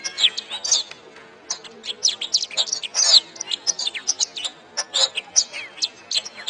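Domestic canary singing: a fast, varied run of chirps, trills and whistled notes that sweep up and down in pitch, with a short pause about a second in.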